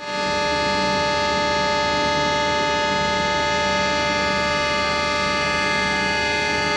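A train's locomotive air horn sounding one long, steady blast, several tones at once, as the train signals its departure.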